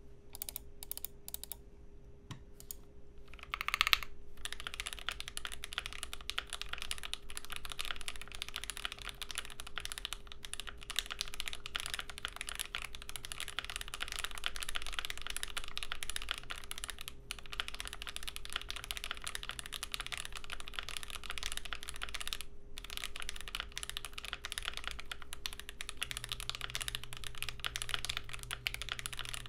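GMMK Pro mechanical keyboard with lubed, filmed Banana Split linear switches on a polycarbonate plate, with GMK keycaps, being typed on. A few scattered keystrokes come first, then one louder clack about four seconds in, then fast continuous typing with brief pauses.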